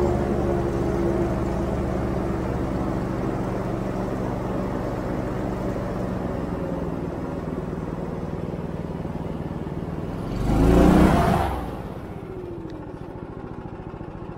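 Airboat's engine and air propeller running steadily under way, gradually easing off. A loud surge about ten and a half seconds in, then the engine slows with a falling pitch near the end.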